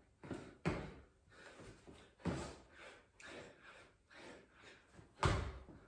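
A man breathing hard with gasping breaths while doing burpees with push-ups, with several thuds as his hands and feet land on the floor. The loudest thud comes near the end.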